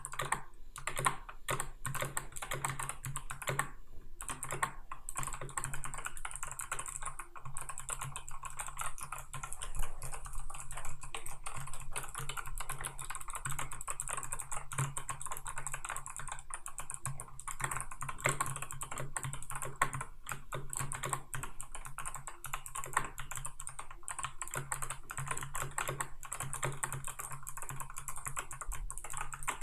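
Typing on a GK61X 60% hot-swap mechanical keyboard fitted with clicky Kailh Box White switches and PBT keycaps: a rapid, continuous stream of key clicks.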